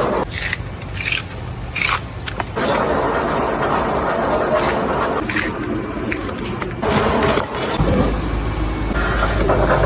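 Wood being scraped and worked while a wooden spoon is shaped. There are a few short scraping strokes in the first couple of seconds, then a longer steady scrape, and a low machine hum comes in near the end.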